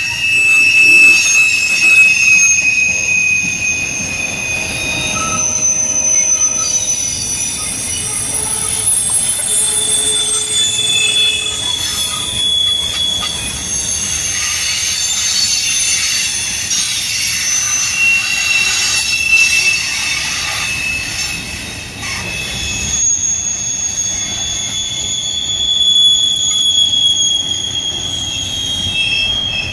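Freight cars of a CSX train rolling past with their wheels squealing: several high-pitched squeals that drift slowly up and down in pitch, over a steady low rumble.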